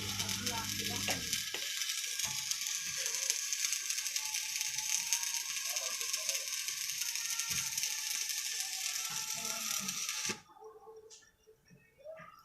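Electric arc welding: the arc crackles and fizzes steadily, then cuts off suddenly about ten seconds in as the arc is broken. A low hum dies away about a second in.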